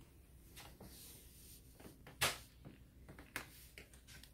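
Quiet room with a few short, soft knocks and clicks, the sharpest about two seconds in and another about a second later.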